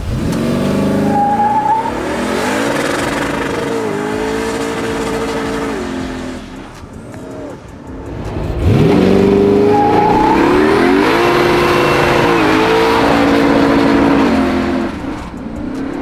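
Twin-turbo V8 in a 1970 Chevelle SS under full throttle, on two separate hard accelerations. Each time the engine climbs quickly in pitch, then drops back and climbs again at each upshift. The second run is the louder.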